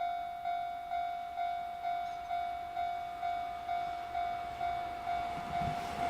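Railway level crossing warning bell ringing at an even pace, about two strikes a second, each a single ringing tone that fades before the next. Near the end the low rumble of an approaching freight train rises beneath it.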